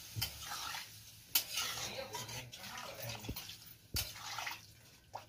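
A metal spatula stirring watery curry in a steel kadai: liquid sloshing, with a few sharp clinks of the spatula against the pan, the loudest about four seconds in.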